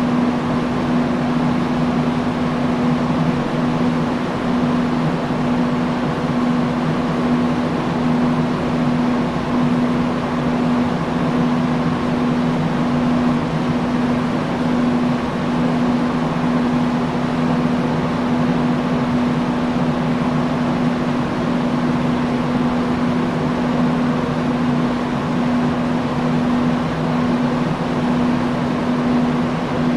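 Industrial fan running steadily: an even rush of moving air over a low, constant motor hum.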